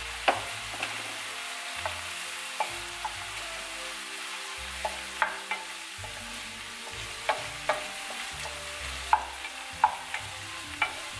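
Italian sausage, onion and garlic sizzling in a frying pan while a wooden spatula stirs them, knocking and scraping against the pan at irregular moments over a steady hiss.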